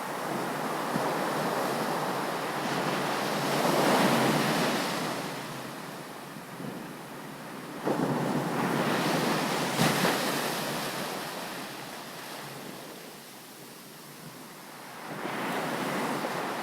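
Ocean surf on a beach: waves break and wash up the shore in three surges. One swells to a peak about four seconds in, a second breaks sharply near the middle, and a third rises near the end.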